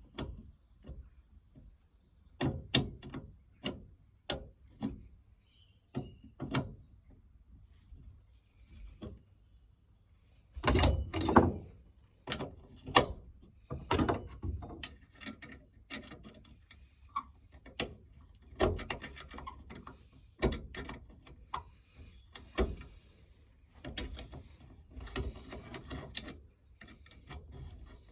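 Metal file rasping in short, irregular strokes on the cut and drilled edges of a chainsaw muffler, taking off sharp edges, mixed with knocks and clatter of the work being handled. A louder run of longer strokes comes about eleven seconds in.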